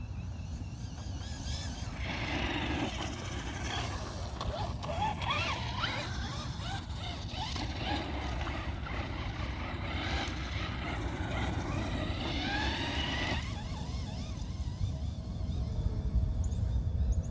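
Traxxas Rustler 4x4 VXL RC truck's brushless electric motor whining, sweeping up and down in pitch with the throttle. The whine starts about two seconds in and stops a few seconds before the end, over a steady low rumble.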